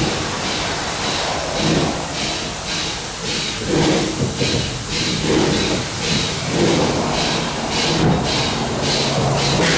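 Jeddo Coal 85, a 1927 Vulcan Iron Works 0-4-0T saddle-tank steam locomotive, exhausting in quick, even chuffs about three a second, the sign of its driving wheels slipping as it struggles to climb a grade.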